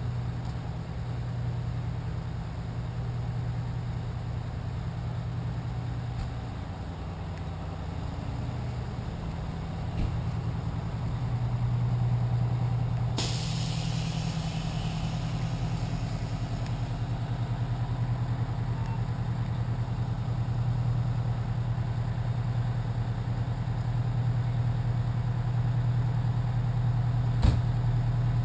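Fire engines' diesel engines idling with a steady low hum, growing louder partway through. About 13 seconds in, a hiss starts and fades over a few seconds.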